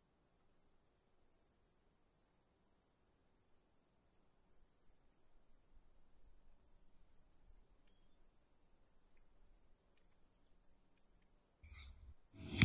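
Crickets chirping faintly, an even run of short high chirps about two a second over a steady high-pitched ring, as night ambience. A brief soft noise comes just before the end.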